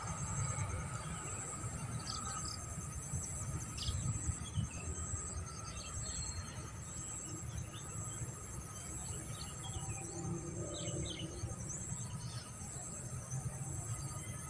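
Open-field ambience: insects trilling steadily at a high pitch, with scattered short bird chirps, over a steady low rumble.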